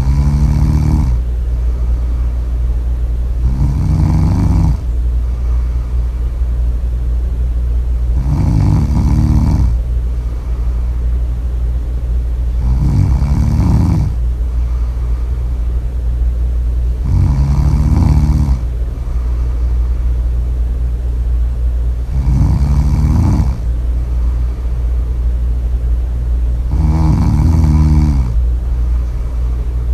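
Loud snoring: about seven snores, one every four to five seconds, each lasting about a second, over a steady low rumble.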